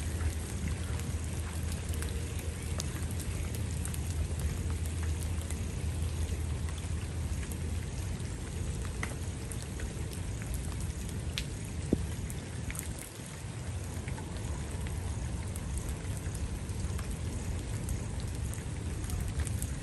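Outdoor ambience during a silent pause: a steady low rumble under a light even hiss, with scattered faint ticks and one sharper click about twelve seconds in.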